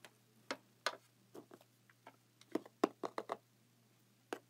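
Small plastic toy figures and pieces being handled and set down on a plastic toy truck, making a series of light, irregular clicks and taps.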